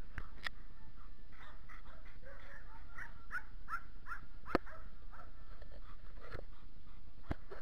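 Several dogs barking and yipping in quick succession, about three short high calls a second through the middle, with a few sharp clicks.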